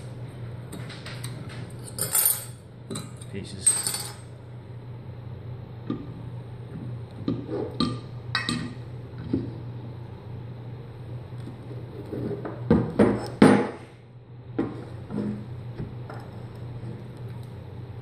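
Metal clinks and knocks of a Pontiac GTO brake caliper and its small parts being handled on a wooden table, the loudest cluster of knocks about 13 seconds in, over a steady low hum.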